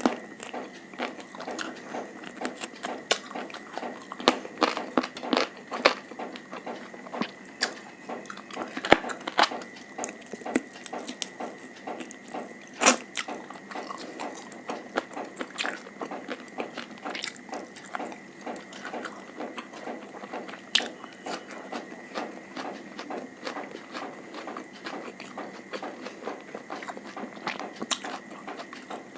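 Close-miked eating sounds: a person chewing and biting food, with a dense run of small wet mouth clicks and smacks and a few sharper bites.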